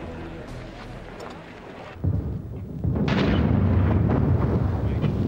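Artillery fire: a deep boom about two seconds in, then a louder, sharper one about a second later, followed by continuous heavy rumbling.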